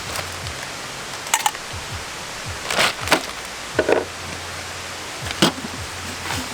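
Wood fire burning with a steady hiss and irregular sharp pops and crackles, about five in a few seconds.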